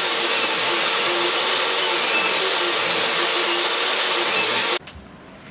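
Table saw running and ripping a wooden board into a narrow strip, a loud steady whine and cutting noise. It cuts off abruptly near the end, followed by a few faint knocks.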